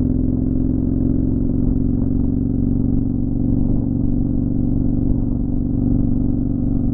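Motorcycle engine running steadily at highway cruising speed, heard from a camera mounted on the bike, with an even low drone and no change in speed.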